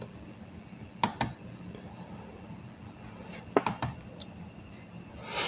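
Computer mouse clicked twice in quick succession about a second in, and again about three and a half seconds in, over faint steady microphone hiss. A short intake of breath comes near the end.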